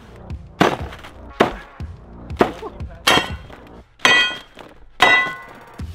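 Axe chopping into a thick wall of layered caution tape: six sharp hits, about one a second.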